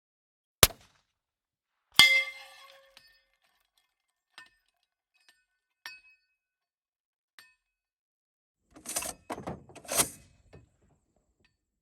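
Suppressed Barrett M107 .50 BMG rifle firing one subsonic round, a single sharp report, followed about a second and a half later by the bullet striking a steel target: a loud clang that rings on for about a second. A few faint clinks follow, and near the end a short cluster of knocks.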